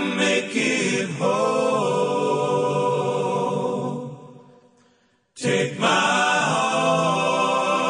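Background music: a slow song of held, chant-like singing voices. The phrase fades out about four seconds in, the sound drops away briefly, and a new held phrase starts about five and a half seconds in.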